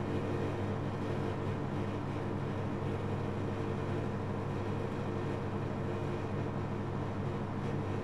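Whirlpool FSCR90425 front-loading washing machine spinning an unbalanced load, with a steady motor hum and constant noise from the turning drum.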